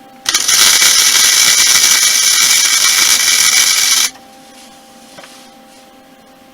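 Wire-feed welder laying a weld of about four seconds on 16-gauge sheet steel: a loud, steady hiss that starts and stops abruptly.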